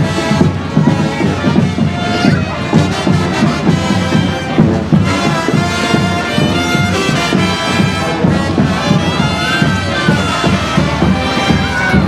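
A marching street band playing wind instruments over a steady drumbeat.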